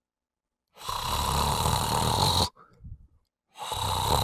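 A man snoring twice: the first snore lasts about a second and a half, the second about a second.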